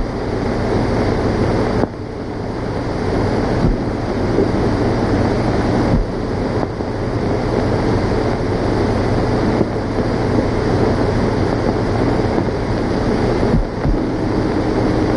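Steady hiss and low hum of a worn 1930s optical film soundtrack, with a few brief crackles.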